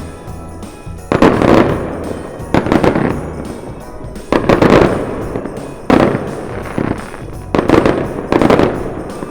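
Aerial fireworks going off: a series of loud booms, roughly one every second or two, each dying away, with background music underneath.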